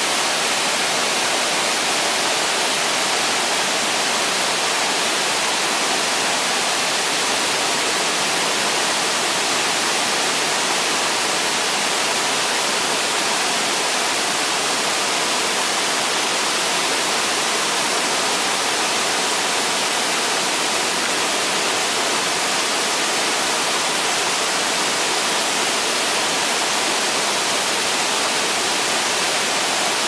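Waterfall cascading over rocks: a loud, steady, unbroken rush of falling and splashing water.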